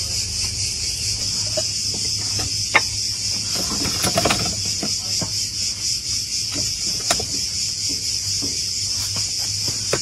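Steady high-pitched chorus of crickets, with a few light knocks and a short clatter about four seconds in.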